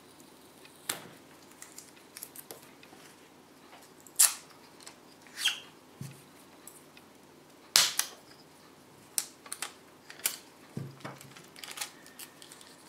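Scattered handling noises of a metal LCD panel being reassembled: short clicks, taps and scrapes of wires and small parts against the backplate, with Kapton tape being pulled from its roll. Two sharper clicks stand out, about four and eight seconds in.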